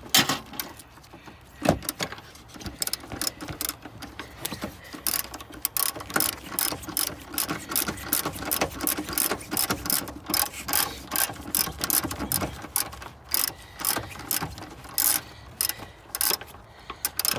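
Hand ratchet wrench clicking in quick runs of sharp ticks as the hybrid battery's mounting bolts are run down and tightened.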